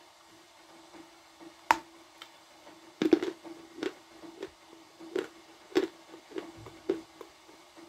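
A person chewing a mouthful of dense blue Uzbek edible clay with the mouth closed: one sharp crunch about two seconds in, then a run of soft crunches about twice a second from about three seconds in, over a steady low hum.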